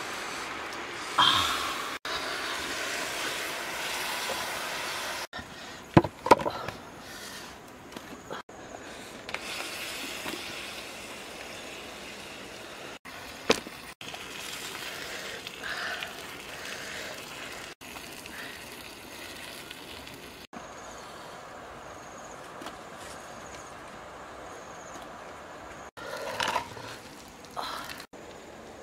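Banana-stem pieces being handled and packed by hand in a cooking pot, with rustling and handling noise and a few sharp knocks.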